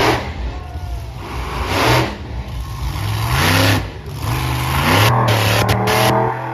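Monster truck engine revving hard in repeated surges, its pitch climbing with each push of the throttle and falling back between, over a rough, loud roar.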